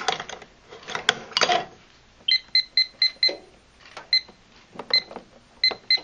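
Silent Knight 5230 fire alarm annunciator keypad beeping as its keys are pressed to enter a code: short identical high beeps, first a quick run of five, then single beeps spaced apart, then a quick few more near the end. A few clicks and knocks come before the beeps.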